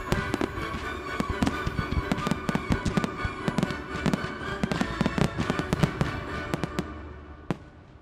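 A professional fireworks display: a dense run of aerial shell bangs and crackle over the show's music, thinning out near the end with one last bang.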